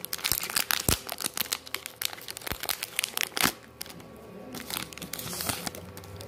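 Foil wrapper of a Pokémon trading card booster pack crinkling as it is opened by hand: a dense run of sharp crackles for the first three and a half seconds, then softer rustling with one more brief burst of crackling near the end.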